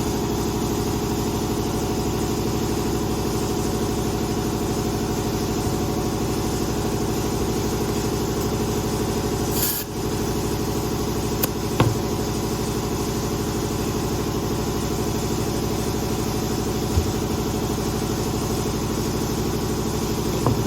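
Air compressor running steadily while a small dirt-bike tire is inflated, with a short hiss of air about ten seconds in and a few light clicks.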